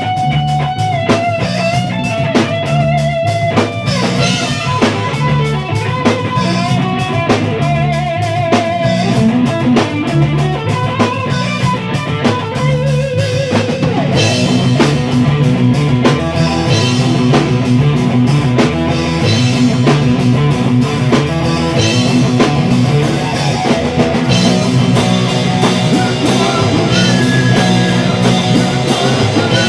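Rock band playing electric guitar, bass guitar and drum kit. In the first half the guitar plays long held notes with vibrato over the beat; about halfway in the band moves into a denser, fuller section.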